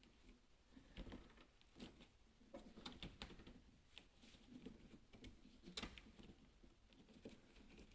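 Faint handling noises: hands gripping and trying to twist the body of a power-tailgate gas strut, with scattered small clicks and rubbing.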